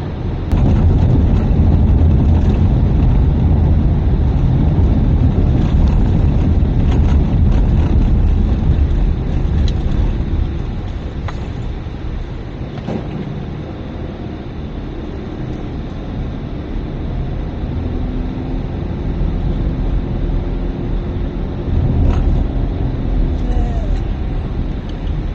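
Car driving on a narrow road, heard from inside the cabin: a steady low rumble of engine and tyres, with a few light knocks scattered through.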